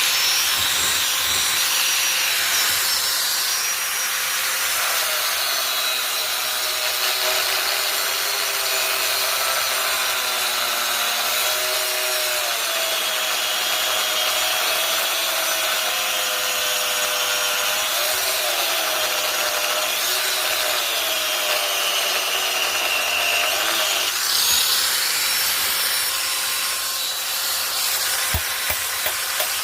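Electric power tool grinding the steel of a chainsaw bar, a continuous hissing grind with a whine that wavers up and down in pitch. The sound brightens about 24 seconds in, and a few light clicks come near the end.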